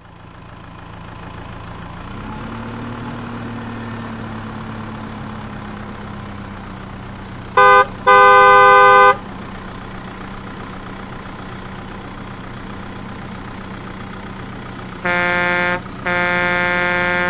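Cartoon vehicle sound effects: a steady engine hum that rises in pitch about two seconds in, with two double horn honks, each a short toot then a longer one. The first pair comes about halfway through and the second, slightly lower pair near the end.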